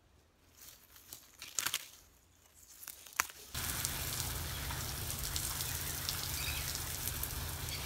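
A few faint rustles of grass and weeds. Then, about three and a half seconds in, a garden hose starts a steady hiss as it sprays water over plants.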